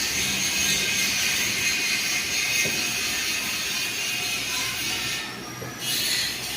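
Panasonic F-560Z2 140 cm industrial ceiling fan running, a steady whoosh of moving air over a faint motor hum. The high hiss briefly drops out about five seconds in.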